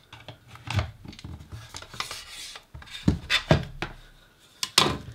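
Hard plastic monitor housing and a small screwdriver being handled on a silicone work mat: a few sharp knocks and clicks as the case is turned over and set down, with rubbing and scraping between. The loudest knocks come about three seconds in and again near the end.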